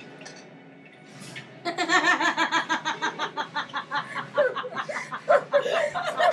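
Several young women burst into loud laughter about a second and a half in, in quick repeated pulses that keep going.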